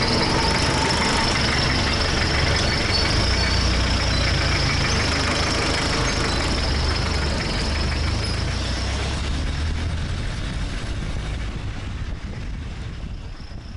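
Jeepney's diesel engine running with road noise during the ride, a steady low drone that fades away over the last few seconds.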